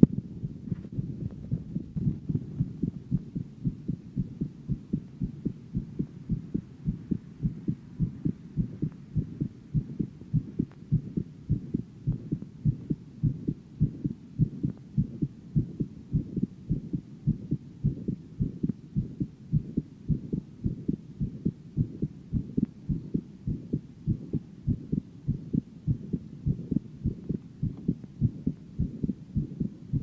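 Heartbeat of a 17-year-old girl: a steady, regular run of low thuds.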